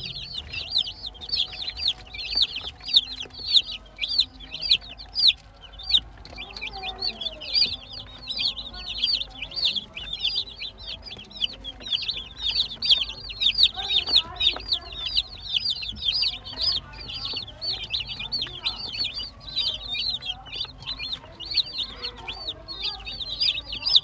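A flock of young domestic chicken chicks peeping nonstop: many short, high-pitched cheeps overlapping, several every second.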